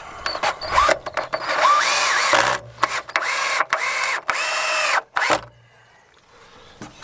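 Power drill running in a series of short bursts. Each whine rises in pitch as the motor spins up, holds, then stops.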